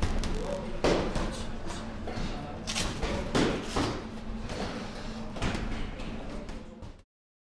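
Repeated thuds and slaps of punches landing in a boxing gym, with indistinct voices behind them.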